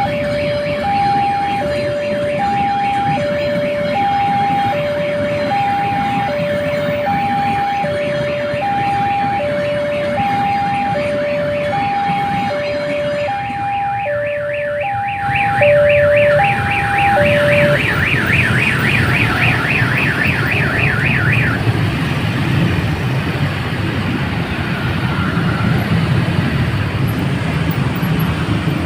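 Railway level-crossing warning alarm sounding an alternating high and low electronic tone, which stops about two-thirds of the way through. Near the middle a fast, high warbling tone sounds for several seconds, and a low, heavy rumble of a large vehicle passing builds and carries on to the end.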